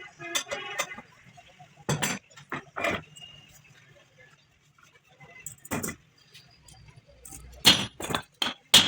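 About six separate sharp metallic knocks and clinks at irregular intervals, from tools and parts being handled during a differential repair, loudest near the end.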